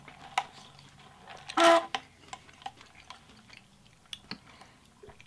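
Close-up eating and drinking sounds: small wet clicks and smacks of chewing, a brief loud squeak about a second and a half in, then sipping through a straw from a large paper fountain-drink cup.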